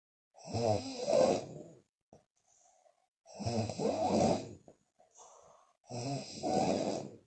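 A woman snoring loudly in a steady rhythm: three long rasping snores about two and a half seconds apart. Between them come fainter, short puffs of breath out through the lips.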